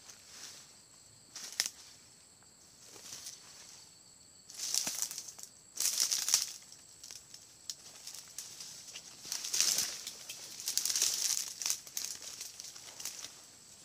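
Footsteps pushing through dry leaf litter and brush, rustling and crackling dry stems and palm fronds in uneven bursts, with a few sharp snaps of twigs.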